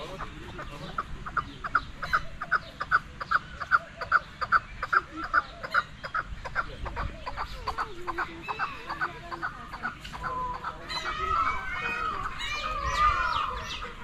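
Chicken clucking in a rapid, even series of about three clucks a second, which thins out after about nine seconds.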